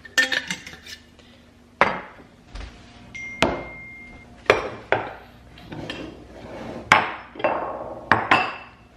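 Kitchenware being handled: a string of about eight sharp knocks and clinks, a few of them ringing briefly.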